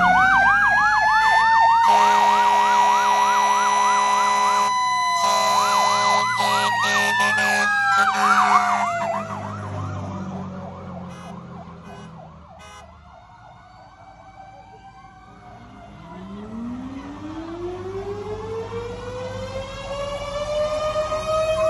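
Fire engine sirens: a fast yelp over a slower wail, with long horn blasts, as the truck approaches and passes. The sound fades about halfway through, then a siren winds slowly up in pitch near the end.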